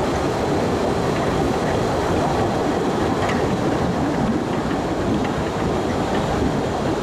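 Postojna Cave narrow-gauge tourist train running along its track, heard from on board: a steady rumble of the wheels and cars, with a few faint clicks from the rails.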